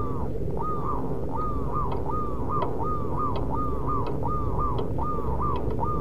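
Zebra dove (perkutut) cooing: a fast, even run of short arched double notes, about two a second, over a steady low rumble.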